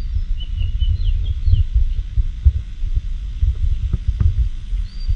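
Wind buffeting the microphone, an uneven low rumble, with faint bird chirps above it.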